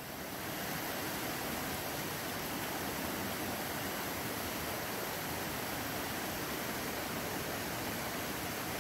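Shallow stream water running over rocks, a steady, even rush.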